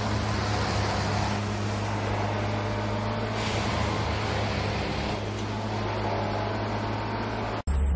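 Engine of a railway track tamping machine running with a steady low drone and hum, cutting off abruptly near the end.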